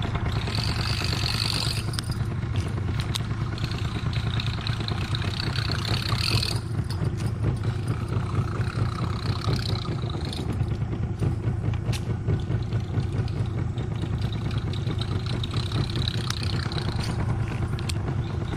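Small boat engine running steadily with a constant low hum. A higher whir comes and goes several times over it.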